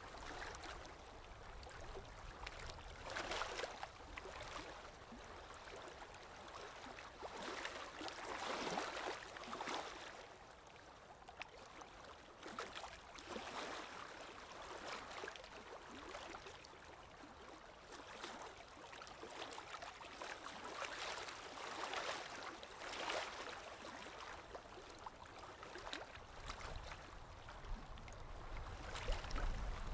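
Running water flowing and gurgling, swelling and easing every few seconds, with a low rumble growing near the end.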